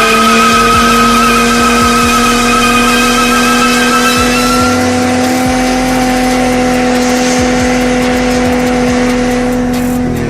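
Supercharged L67 3.8-litre V6 held at steady high revs in a burnout, with tyres squealing for the first four and a half seconds. The revs ease slightly near the end.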